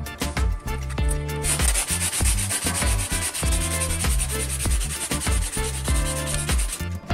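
Wet sanding sponge rubbed quickly back and forth over filler on a plastic part, a dense scratchy hiss that starts about a second and a half in and stops just before the end. Background music plays underneath.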